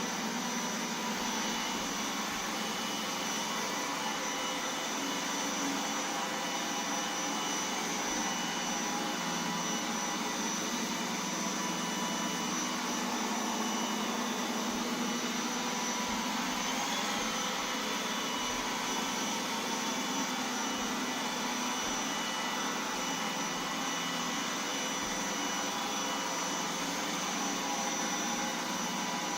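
Roomba 980 robot vacuum running steadily, its suction fan and brushes giving a constant whirring hiss with a high whine. The whine wavers briefly once, a little past the middle.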